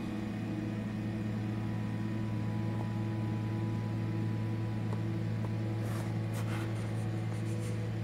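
Steady low electrical or motor hum with a few fainter steady tones above it, as from an appliance or fan running in the room. A short cluster of crackling or rustling sounds comes about six to seven and a half seconds in.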